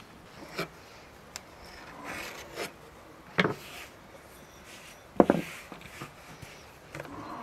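Ceramic bowl pressed rim-down into rolled dough on a wooden board to cut out circles: several knocks of the bowl on the board, the loudest about three and a half and five seconds in, with soft rubbing and scraping as the dough scraps are pulled away.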